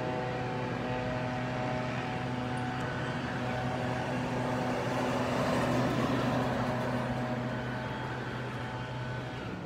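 A small wildland fire engine (brush truck) driving past. Its engine and tyre noise swell to a peak about halfway through, then fade as it pulls away. A steady low hum runs underneath and stops just before the end.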